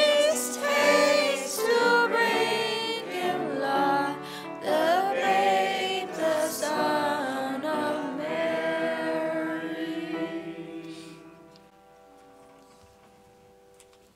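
A choir singing a song together; about ten seconds in it holds a final chord that fades away, leaving faint room sound.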